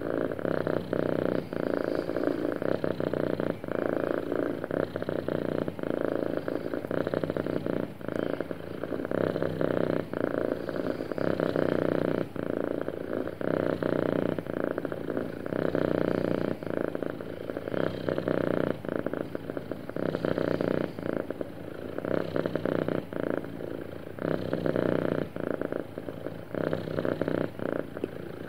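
Domestic cat purring steadily up close, the purr swelling and easing in cycles of about two seconds: the purr of a contented cat.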